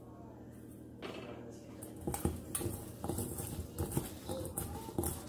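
Hands tossing and rubbing salt into Korean radish sticks in a stainless steel bowl: the sticks knock and rattle against each other and the metal bowl in quick, irregular clicks, starting about two seconds in.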